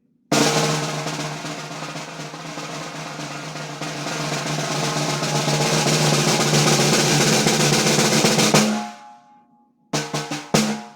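Slingerland replica 13 by 4 inch piccolo snare drum played in one long roll that starts with an accented stroke, swells louder and ends on an accent near the nine-second mark, then rings out. About a second later quick single strokes begin in a rhythmic pattern.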